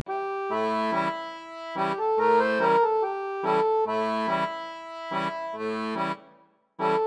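Background music: an instrument playing repeated sustained chords in a steady rhythm, breaking off briefly about six seconds in before starting again.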